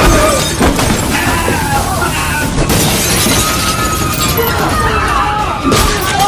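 A loud, dense din of glass shattering and crashing, without a break, with scattered shouting voices in it.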